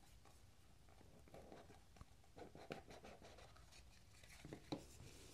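Faint rubbing and scraping of a cardboard knife box being handled and opened, with a few light taps and clicks.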